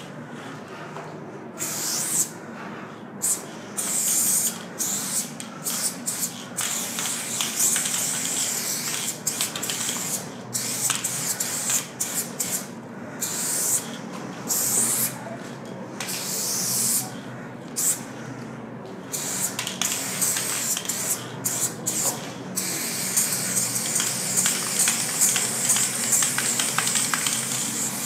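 Aerosol spray paint can spraying in many short bursts and longer strokes with brief pauses between, then in one longer unbroken spray near the end.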